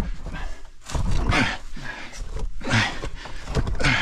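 Men grunting and breathing hard in irregular bursts as they strain to haul a heavy boulder up on a rope sling.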